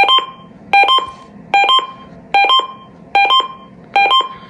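Uniden Bearcat BC370CRS scanner sounding its alert tone: a pair of short electronic beeps, the second slightly higher, repeated evenly a little more than once a second.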